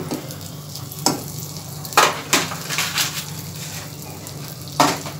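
Butter starting to melt and sizzle faintly in a nonstick kadhai while a metal spoon stirs it, scraping against the pan four times, with a steady low hum underneath.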